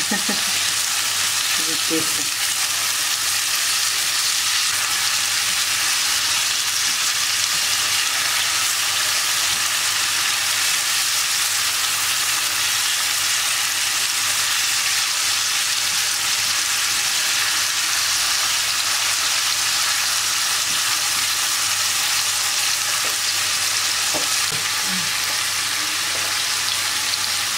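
Ground beef, chopped peppers and tomato frying in olive oil in a nonstick pan, sizzling steadily as the raw mince browns. A silicone spatula stirs it through the pan.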